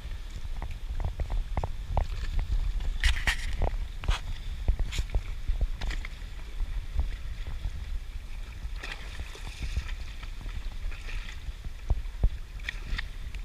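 Wind rumbling on the microphone over seawater lapping and slapping against a concrete seawall, with several brief splashes.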